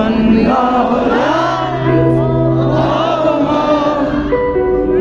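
Live band music played over a concert PA system, with singing gliding over held, steady notes.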